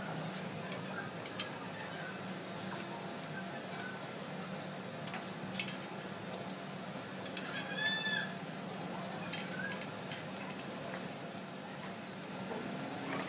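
Birds chirping faintly, with one longer arched call about eight seconds in, over a steady low hum. A few sharp clicks stand out, the loudest about eleven seconds in.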